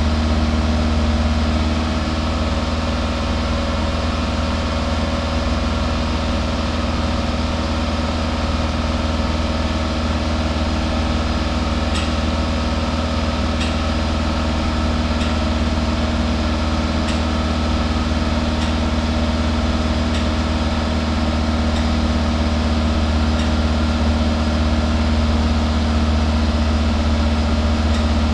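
Toyota 2SZ-FE 1.3-litre four-cylinder engine idling steadily at the exhaust, with a deep even hum. It has just had a WAKO'S RECS intake-cleaner treatment and is burning off the cleaner. Faint light ticks come about every second and a half midway through.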